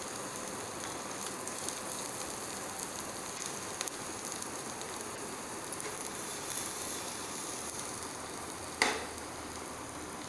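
Chopped garlic sizzling steadily in hot olive oil in a ceramic frying pan. Near the end there is one sharp knock, the pan being set back down on the glass cooktop.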